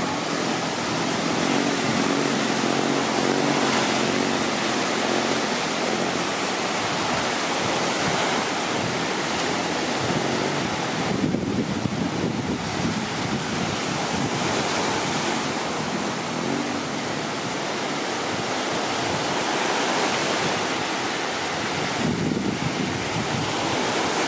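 Surf washing and breaking along the shore, with wind buffeting the microphone.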